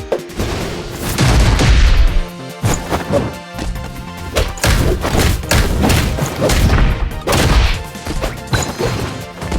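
A series of loud bangs and crashes, several strikes in a few seconds, with some sustained tones beneath them.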